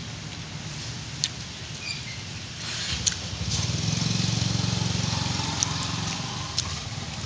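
Cats lapping water from a ceramic pot, heard as a few soft wet clicks. A motor vehicle's engine hum swells and fades through the middle and is the loudest sound.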